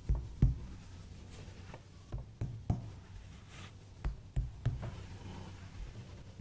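Sharp cracks and pops of an ASMR chiropractic back and spine adjustment: two loud ones right at the start, then quicker runs of about three each near the middle, over a faint low hum.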